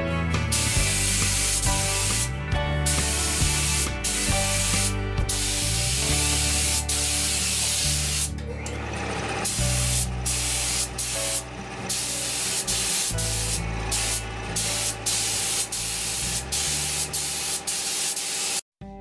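Gravity-feed air spray gun spraying black paint: a steady hiss of compressed air and paint mist, broken by many short pauses.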